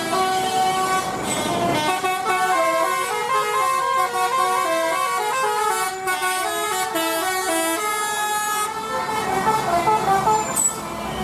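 Bus 'telolet' Basuri musical air horn playing a quick tune of short notes that step up and down, several tones sounding together.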